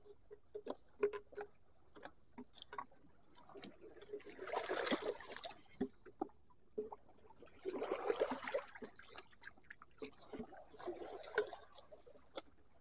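Shallow rock-pool water sloshing and splashing twice as a hand dips a small caught fish into it. Small clicks and knocks from handling the fish and lure come in between.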